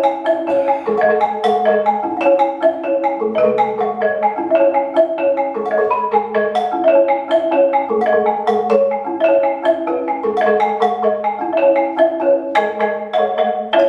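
Marimba de chonta played with mallets: a fast, repeating figure of ringing high notes over lower notes that change about every second and a half.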